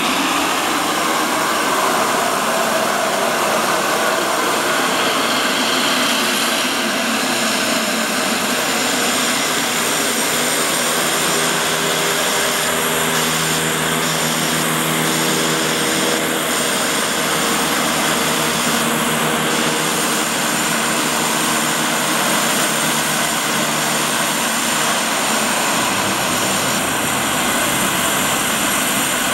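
Twin Walter M601E turboprop engines of a Let L-410 UVP-E running loud and steady as the aircraft taxis, the turbines and five-blade propellers giving a continuous rushing drone. A pitched propeller hum stands out for several seconds in the middle.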